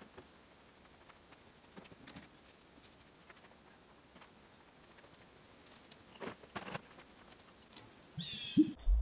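Faint outdoor background with a few light knocks and clatters of scrap being handled, two of them louder past the middle. Near the end comes a brief louder scrape as a flat-screen TV panel is stood against a wall.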